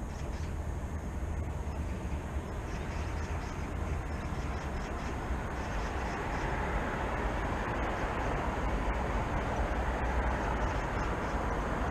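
Low rumble of urban traffic, with the noise of a passing vehicle growing louder from about a third of the way in and peaking near the end.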